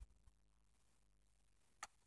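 Near silence, with a faint low thump at the start and one sharp little click near the end.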